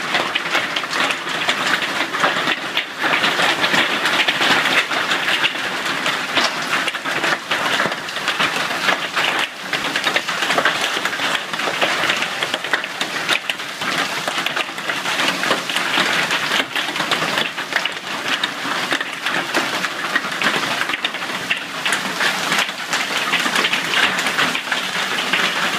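Golf-ball-sized hail falling in a heavy storm: a dense, continuous clatter of countless hailstone impacts mixed with heavy rain.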